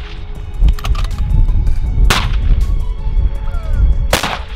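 Centerfire precision rifle fired twice, about two seconds apart, each a sharp crack with a short echo, over background music with a steady beat.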